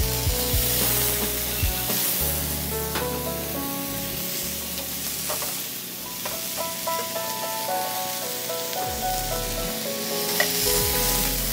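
Vegetables sizzling as they fry in hot olive oil and garlic in a skillet, tossed with metal tongs that click against the pan now and then. Background music with held notes plays underneath.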